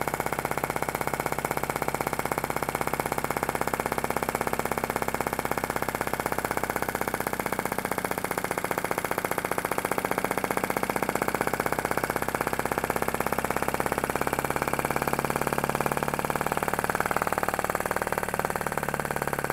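PM Research Solar Engine #3, a small flame-eater (vacuum) engine, running steadily at speed with a fast, even clatter from its piston and valve. It is warmed up, with its flame set close to the sweet spot.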